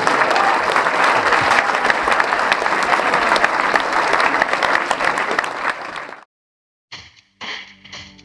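Audience clapping and applauding, a dense steady patter of many hands, which cuts off abruptly about six seconds in. After a short silence, music begins.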